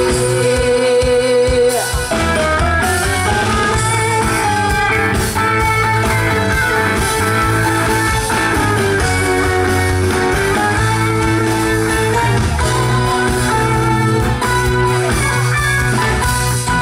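Instrumental break of a Thai pop song: a guitar plays the melody over steady bass and drums.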